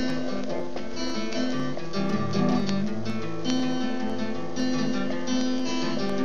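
Acoustic guitar strumming chords in a steady, lively rhythm.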